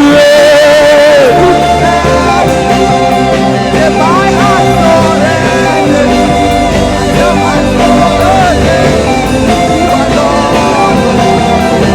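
Live worship band playing a slow, steady interlude: sustained keyboard chords over a bass line, with a held, wavering sung note in the first second and a few brief sung runs later.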